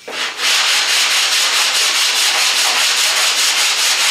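Sandpaper on a hand sanding block scraping over hardened Bondo body filler on a car's steel quarter panel, in quick, even strokes several times a second, starting about a third of a second in. The filler is being feathered out into the panel.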